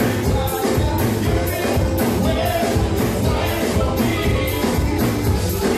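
Live band playing with a drum kit, electric guitar and keyboards over a steady beat of about two hits a second, a vocalist singing into a microphone on top.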